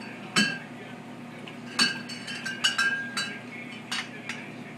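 A yellow Labrador lapping water from the drip tray of a water cooler: irregular sharp clinks against the tray, several close together in the middle, over a low steady hum.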